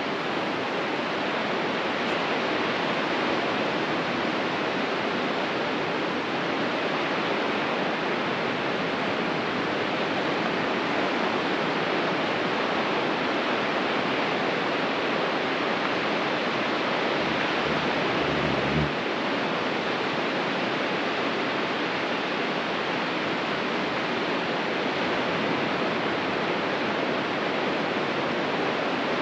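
Ocean surf breaking on a beach: a steady, even wash of noise. A brief low thump comes about two-thirds of the way through.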